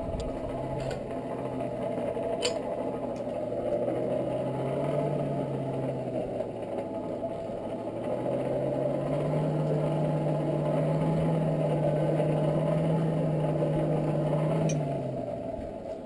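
Hand-cranked blower on a coal forge whirring steadily as it blows air into the fire to heat the iron. Its pitch rises as the cranking speeds up about halfway through, then it winds down and stops shortly before the end.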